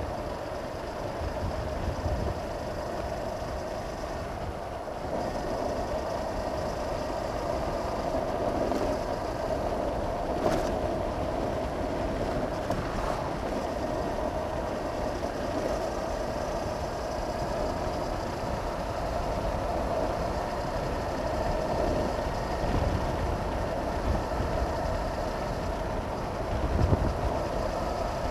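Honda CB500X's parallel-twin engine running at a steady road speed, mixed with wind rushing over a helmet-mounted microphone, with a brief click about ten seconds in.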